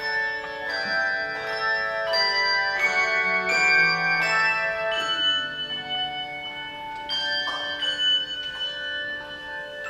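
Tuned bells playing a slow melody in chords: each note is struck and left to ring, overlapping with the next.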